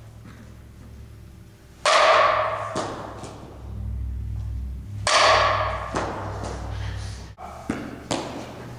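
Fastpitch softball bat striking soft-tossed softballs: two sharp hits about three seconds apart, each ringing out briefly. A lighter knock follows near the end.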